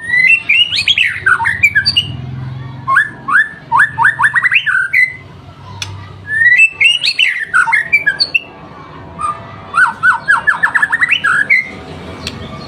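White-rumped shama (murai batu) singing loudly: two similar song phrases of about five seconds each. Each opens with quick sweeping whistles and ends in a fast run of short notes that climb in pitch.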